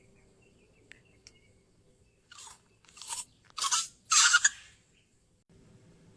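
Crunching bites into a crisp cucumber: four crunches a little over half a second apart, each louder than the last, the final one the longest, after two faint clicks.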